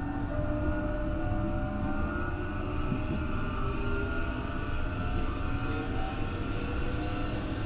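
Running sound inside a Tokyo Metro 03 series armature-chopper electric train: the rumble of wheels on rail, with several whining tones from the traction equipment that drift slowly in pitch. This car's unusual whine is the kind known as a "jet sound".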